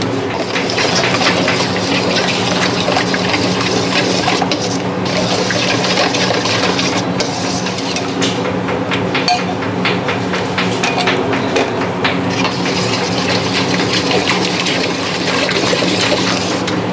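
A metal spoon stirring and scraping thick yogurt sauce around a stainless steel bowl, with quick clinks and scrapes all through, over a steady hum.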